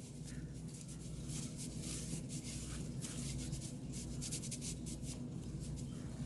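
A cleaning pad wiping excess oil off a Glock 23 pistol: a quiet, scratchy rubbing of many short, irregular strokes.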